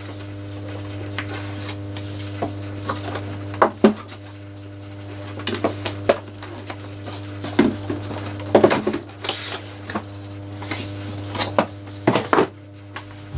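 Cardboard packaging of a Google Home Max being handled: the printed outer sleeve slid off the box and the lid lifted, giving scattered scrapes, taps and rustles, the loudest near the end, over a steady low hum.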